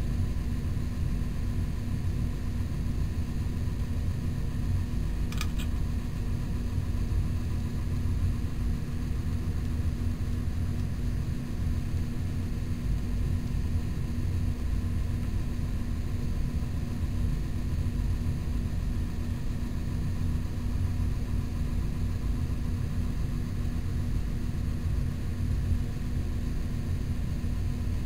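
Steady low machine hum with hiss that stays level throughout, and one brief high chirp about five seconds in.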